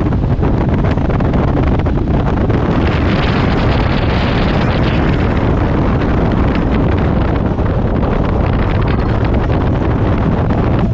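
Motor trike engine running steadily at cruising speed on the open road, buried under heavy wind buffeting on the microphone, which swells for a couple of seconds about three seconds in.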